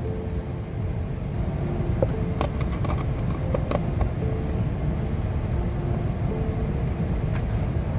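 Steady low rumble, with a few light clicks and taps between two and four seconds in as a screwdriver and the plastic glovebox trim are handled.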